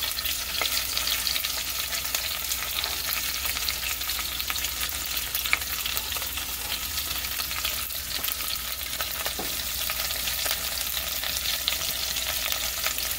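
Chicken legs browning in hot oil in a pot with chopped onion, green bell pepper and garlic, sizzling steadily with many small pops.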